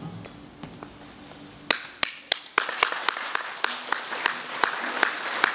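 The last acoustic guitar chord dies away, then the audience breaks into applause about a second and a half in. A few sharp single claps stand out above the crowd at about three a second.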